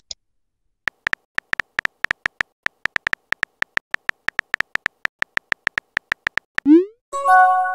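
Texting-app sound effects: steady electronic keyboard clicks, about five a second, as a message is typed. Near the end come a short rising whoosh and a brief chime of several tones as the message sends.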